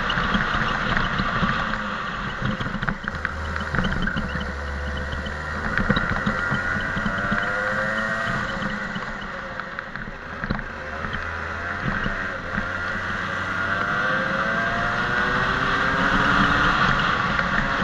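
Rental kart's engine running hard on track, its pitch rising and falling several times as it revs up along the straights and drops back for the corners.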